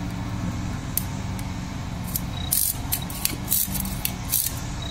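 Forceps working fine 26-gauge wire around an Erich arch bar on a plaster model: a run of short, light metallic scrapes and clicks starting about two seconds in, over a steady low hum.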